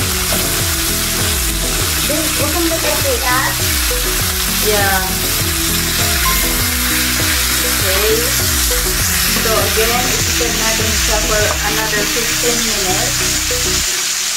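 Chicken thighs sizzling steadily as they sear without oil in a stainless steel Saladmaster electric skillet, frying in their own fat while being turned with metal tongs. Background music plays underneath and its beat stops near the end.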